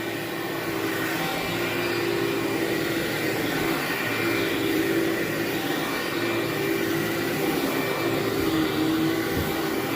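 Vacuum cleaner running steadily, its motor hum wavering slightly in pitch now and then as it is pushed over the carpet.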